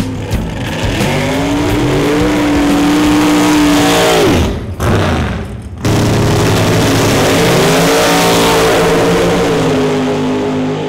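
Dragster engines at full throttle, twice: the first rises to a high, steady pitch and drops away about four seconds in, and after a short break a second rises and holds high.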